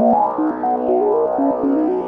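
Background electronic music: a quick melody of short stepping notes, about four or five a second, over a steady pulse.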